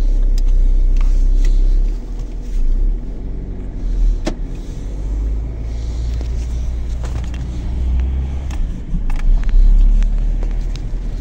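Peugeot 207 on the move: a steady low rumble of road noise, broken by a few short knocks, the sharpest about four seconds in.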